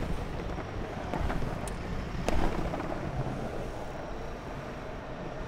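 Longboard wheels rolling over paving slabs and tarmac, a steady rumble with a sharp knock at the start and a few sharp clicks about two seconds in. Wind buffets the microphone.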